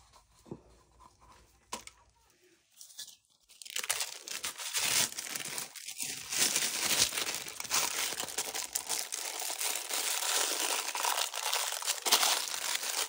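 A stir stick scraping round a small paper cup while resin and pigment paste are mixed: a few light taps, then a dense, continuous scratching that starts about four seconds in.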